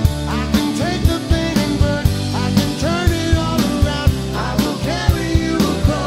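Background music: a song with a sung vocal over a steady drum beat.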